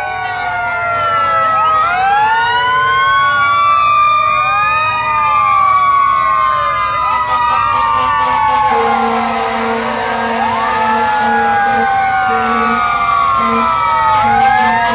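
Several fire-engine sirens wailing at once, their rising and falling tones overlapping as the trucks pass close by. From about nine seconds in, a low horn sounds in repeated short blasts.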